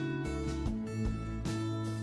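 Background music led by a strummed acoustic guitar over a steady bass line, with a regular beat.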